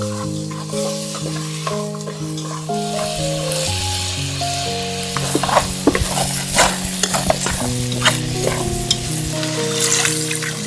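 Chunks of meat sizzling as they brown in a pot, stirred with wooden chopsticks that give many sharp clicks and scrapes against the pot, busiest in the second half. A slow, gentle melody of held notes plays underneath.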